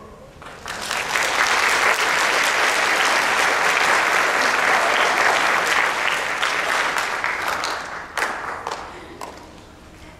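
Audience applauding at the end of a children's chorus song: the clapping swells within the first second, holds steady, then thins to a few scattered claps and dies out near the end.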